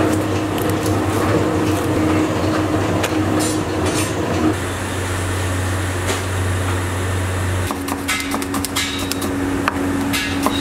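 A steady low hum, joined from about eight seconds in by a knife chopping onions on a wooden block in quick, even strokes.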